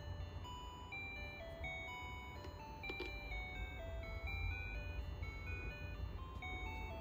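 A simple electronic melody of pure, beep-like tones stepping from note to note, like a toy or music-box tune. About three seconds in there is a single light click as a small plastic toy lollipop is pushed into the toy candy wagon's stand.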